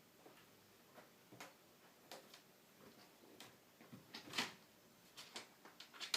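Scattered light taps, clicks and brief rustles of a kitten at play, the loudest rustle about four and a half seconds in.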